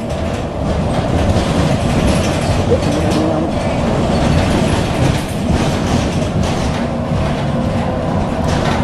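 Steady engine and road noise inside a moving city bus, with the body and windows rattling and clattering now and then.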